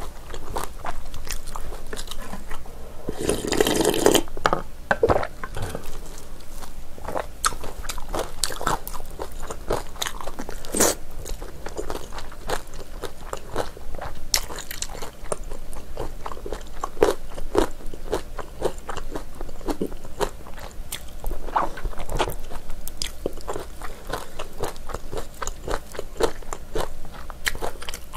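Close-miked chewing and biting of spicy braised ox trotter: chewy, gelatinous beef-foot meat and skin gnawed off the bone, with a constant run of small wet mouth clicks and a louder rush about three seconds in.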